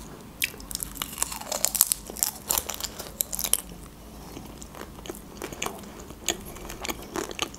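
Close-miked chewing and crunching of a mouthful of homemade taco, with many small sharp mouth clicks throughout.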